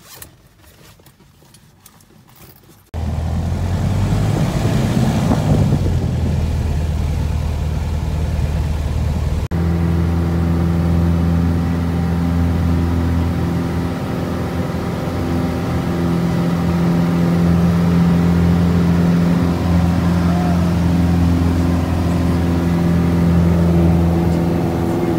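Small single-engine propeller plane's piston engine at full power for takeoff and climb-out, heard from inside the cabin as a loud, steady low drone. It comes in suddenly about three seconds in, after a quiet stretch, with a brief break near ten seconds.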